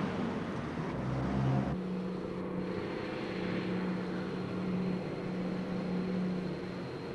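Street traffic: a motor vehicle's engine running steadily with a low hum over general road noise. The background changes abruptly about two seconds in.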